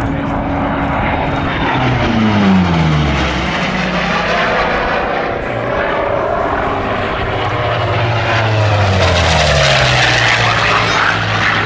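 Hawker Fury fighter's piston engine and propeller running at display power, the note falling twice as the aircraft sweeps past, about two seconds in and again around nine seconds.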